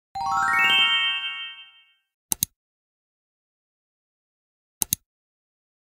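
A bright chime sound effect: a quick upward run of ringing notes that fades out within about two seconds. Then two brief double clicks follow, about two and a half seconds apart.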